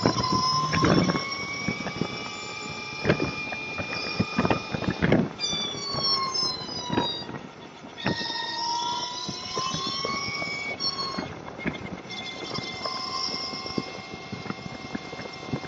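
Motorcycle filtering between lanes of slow freeway traffic: a whine from the bike that rises and falls with its speed, over wind and road noise, with scattered sharp knocks.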